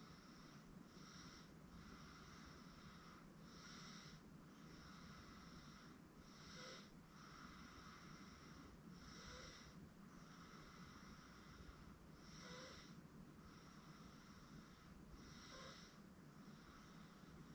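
Faint breathing and soft snoring of a sleeping 8-month-old baby, one breath about every three seconds, over a steady background hiss.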